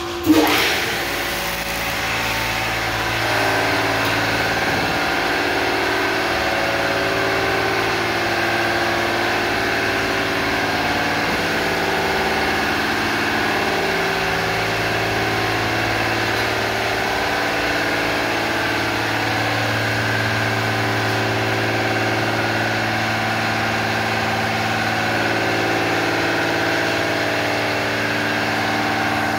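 Car wash equipment-room machinery running: electric pump motors giving a steady hum and whine over a broad mechanical noise. A sharp knock comes right at the start.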